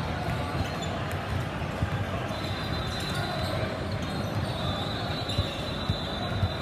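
A basketball bouncing on the court, with irregular thuds during play and indistinct voices in the background.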